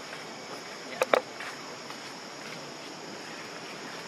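Steady high drone of insects, with two short, sharp sounds about a second in.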